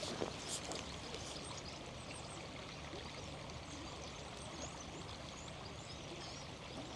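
Faint, steady rush of a small river flowing, with scattered high chirps of small birds.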